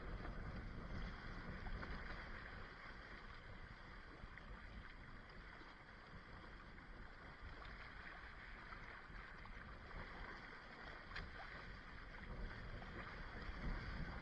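Water rushing and splashing along the hulls of a Hobie Tandem Island sailing kayak under way in choppy sea, with a steady low rumble of wind buffeting the boat-mounted microphone. It grows a little louder near the end.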